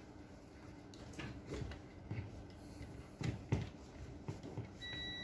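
Small clicks and knocks of a screwdriver against plastic-and-metal HP LaserJet 2055dn printer parts being worked by hand, the two loudest a quarter-second apart about three and a half seconds in. Near the end a steady high beep starts.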